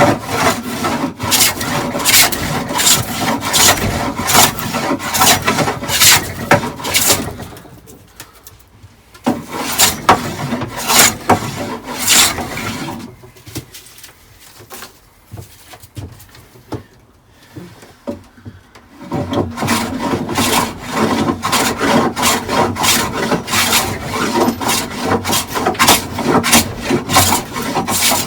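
Hand plane taking repeated strokes along the sawn edge of a pine board, truing it down to a marked line after a rip cut. The strokes stop twice in the middle, briefly and then for several seconds.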